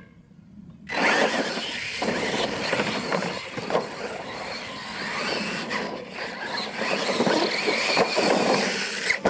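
Two Losi LMT radio-controlled monster trucks launch off the start line about a second in and race across a dirt track: the whine of their brushless electric motors over the noise of the tyres churning dirt.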